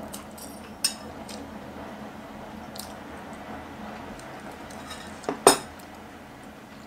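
Metal fork clinking against a small plate while eating noodles: a few light clicks, then two louder clinks close together about five seconds in as the plate is set down.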